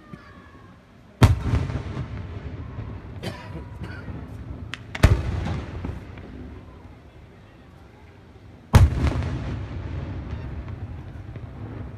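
Aerial fireworks shells bursting: three loud bangs, about a second in, at about five seconds and near nine seconds, each followed by a long rolling rumble. Smaller pops and crackles sound between the first two.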